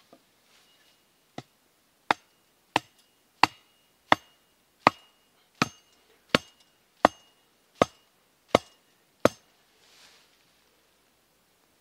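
A stake being hammered into the ground to anchor a trap: a light knock, then eleven steady blows about 0.7 s apart, each with a short metallic ring.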